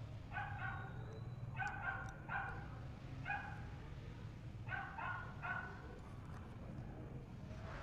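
A dog barking: about seven short, high barks, some coming in quick pairs and threes, over a low steady hum.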